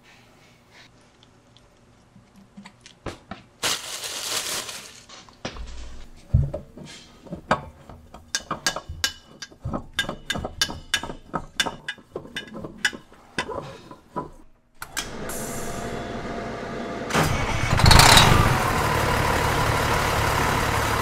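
Tools and parts clicking and clanking during an oil-filter change on a semi truck's diesel engine. Then the engine runs steadily, jumping louder about three seconds after it starts.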